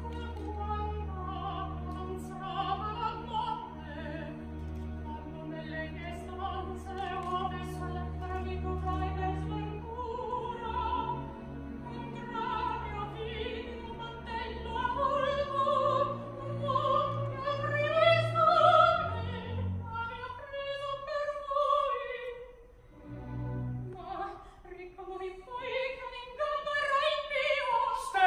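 Soprano singing an operatic recitative in Italian with wide vibrato, accompanied by an orchestra whose low strings hold long notes under her phrases.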